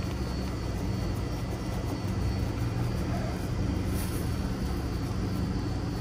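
Steady low machinery hum and drone, even throughout with no clear strokes or changes.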